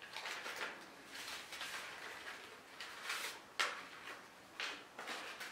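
Paper envelope and the sheets inside rustling as the envelope is opened and the papers are pulled out, with two sharp taps in the second half.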